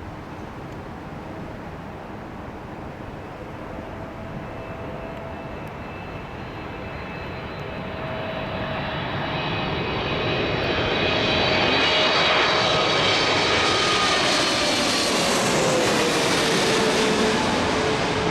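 Boeing 777-300ER's GE90 turbofan engines on landing approach, growing steadily louder as the airliner comes near, with a whining fan tone over the jet rush that drops in pitch in the last few seconds as it passes.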